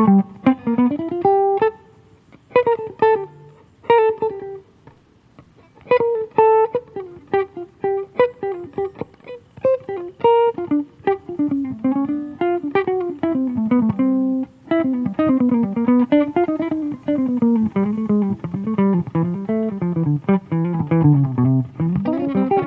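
Solo acoustic guitar improvising, single plucked notes and chords, with short pauses early on giving way to a denser passage whose bass line wanders down toward the end.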